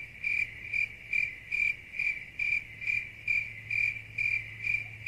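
Crickets chirping: short, even chirps a little over two a second, over a faint steady low hum.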